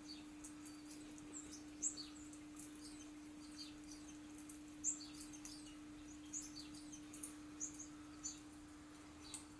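Small birds chirping faintly, short high chirps scattered several to the second with a few louder ones, played from a bird video for cats on a laptop's speakers. Under them runs a steady low hum.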